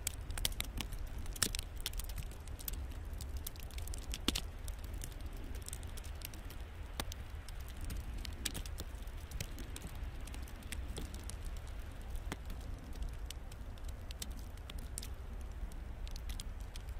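Sleet ticking and pattering in irregular sharp clicks over a steady low rumble, with a few louder ticks in the first few seconds.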